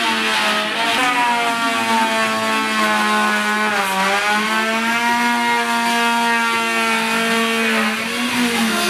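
Handheld electric router running at a steady whine, its pitch dipping briefly about four seconds in.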